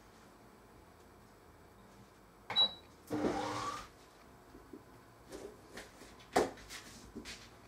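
Sucuk sausage being sliced with a knife on a cutting board: several sharp knife taps in the second half, one louder than the rest. Before that, a click with a short high beep about two and a half seconds in, then a brief noisy rising whir lasting under a second.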